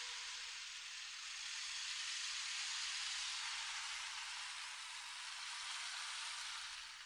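A steady, even hiss like rain or static, swelling and easing slowly, fading out at the very end.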